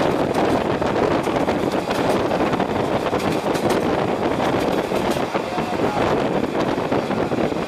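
Old-style passenger coach running along, heard through its open window: a steady rumble of wheels on the rails mixed with wind rushing in at the window.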